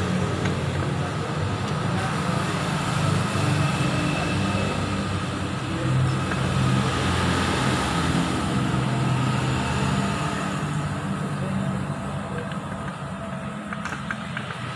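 Yamaha R25's parallel-twin engine running steadily at low revs, a little quieter in the last few seconds.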